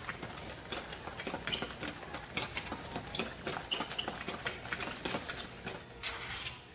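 A fork stirring a runny egg-and-milk mixture with chopped vegetables and bread in a plastic bowl: quick, irregular clicks and scrapes of the fork against the bowl.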